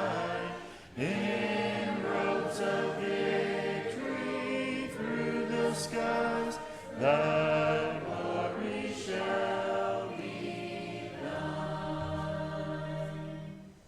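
A congregation singing the closing lines of a hymn together in several voice parts, ending on a long held final chord near the end.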